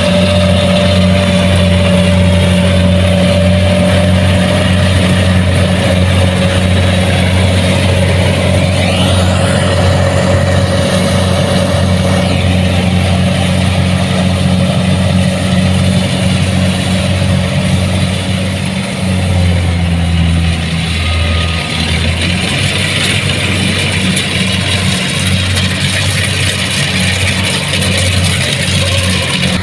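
Kubota DC70 Plus rice combine harvester's diesel engine running steadily. Its note dips briefly about two-thirds of the way through.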